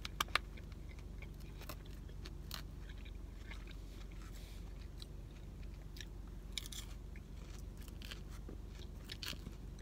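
Close-up chewing of a chicken Caesar salad: crisp romaine and croutons crunching in the mouth, in scattered short crunches and clicks, a couple of sharper ones right at the start. A steady low hum sits underneath.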